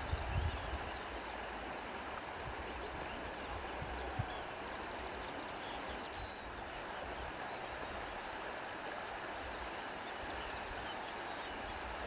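Steady wind, an even rushing hiss, with low rumbles of wind buffeting the microphone in the first second and briefly about four seconds in.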